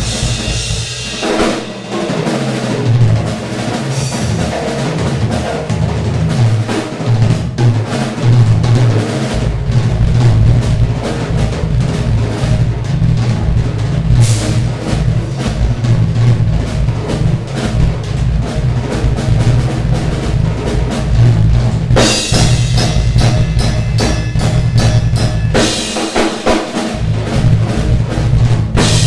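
Drum kit played solo in a fast improvisation: dense snare and tom strokes with rolls over a busy bass drum. The bass drum sits lighter for the first several seconds, then runs heavily under the fills, and cymbals come in bright and crashing about 22 seconds in.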